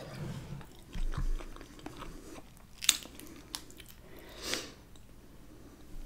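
Close-miked chewing and mouth sounds of someone eating mussels in sauce, with a few sharp clicks, the clearest about three seconds in.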